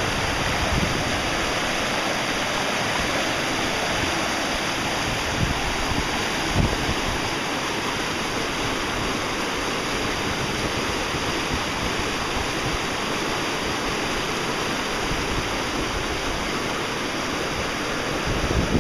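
Mountain river rapids rushing and splashing over boulders: a steady roar of white water, with a few brief low thumps about six seconds in.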